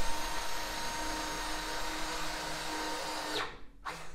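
Homematic KeyMatic motorised door lock's electric motor running steadily as it turns the lock cylinder to lock the door, stopping about three and a half seconds in, with a brief further whir near the end.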